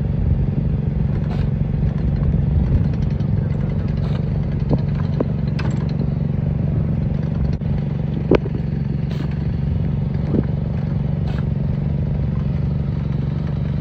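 A small engine runs with a steady low hum, with scattered sharp clicks and knocks on top; the loudest knock comes about eight seconds in.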